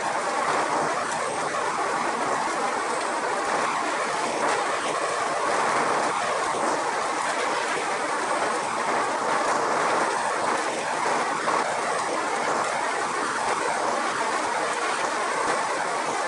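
A Kadıoğlu Nutmec 180E walnut peeling machine running loaded with green walnuts. The nuts churn and rattle against the machine as their green hulls are stripped, a steady dense rush of noise with faint scattered clicks.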